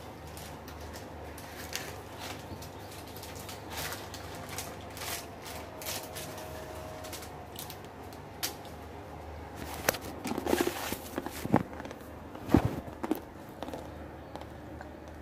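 Handling noises while cooking on a gas stove: small scattered clicks and taps, then a run of louder knocks and rattles between about ten and thirteen seconds, over a steady low hum.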